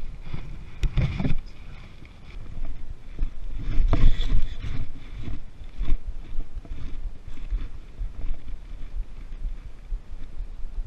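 Rustling and bumping noise on a body-worn camera as the angler moves about on a bank of dry leaves and brush, over a low wind rumble on the microphone. Louder knocks come about a second in and again around four seconds in.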